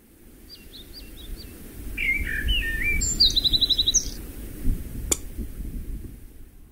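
Several bird chirps and calls: quick gliding whistles, then a short rapid trill, over a low rumbling noise that grows louder in the first few seconds. A single sharp click comes about five seconds in.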